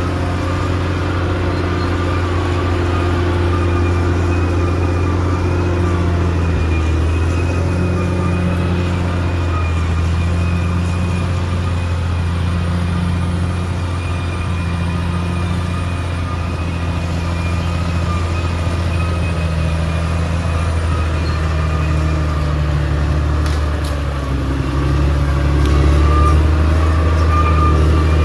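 Caterpillar D6R XL crawler bulldozer's diesel engine running steadily under working load, its low hum shifting pitch now and then, with a thin steady whine above it. It grows slightly louder near the end.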